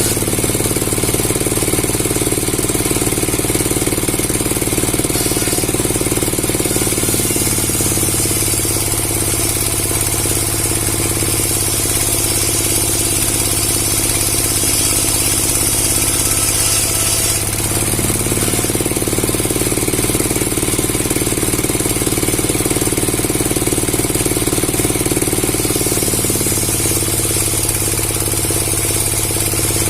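Powered wood saw running steadily with a low hum, its tone shifting a few times as its load changes.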